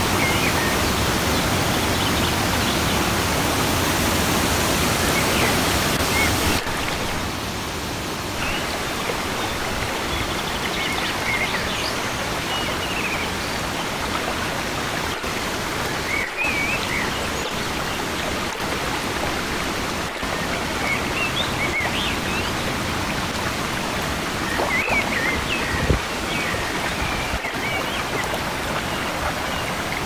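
Rushing whitewater of a mountain creek pouring over boulders: a steady, full rushing sound that drops slightly in level about six and a half seconds in.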